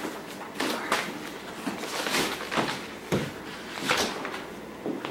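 Household knocks and clatters in a kitchen with a tiled floor, about six separate short ones spread across a few seconds, as from doors, objects and footsteps being handled.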